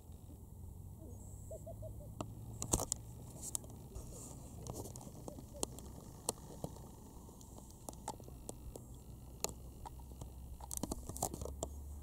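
Steady low wind rumble on the microphone, broken by irregular sharp clicks and crackles of the camera being handled. The clicks come in a cluster a few seconds in and again near the end.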